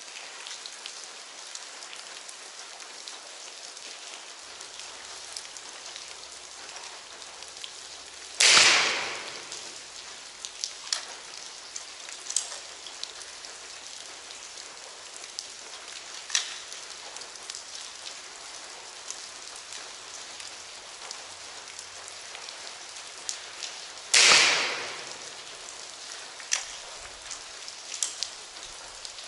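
Two shots from a Crosman Quest 1000 break-barrel air rifle fitted with a gas spring, about 16 seconds apart. Each is a sharp crack that echoes for about a second off bare concrete walls. A few lighter clicks fall between and after the shots.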